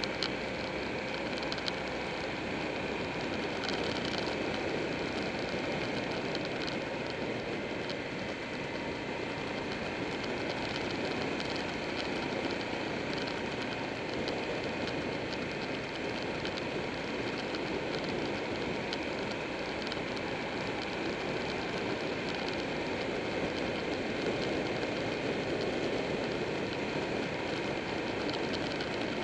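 Buell 1125R's liquid-cooled V-twin engine running steadily under way, mixed with wind and road noise on the bike-mounted camera.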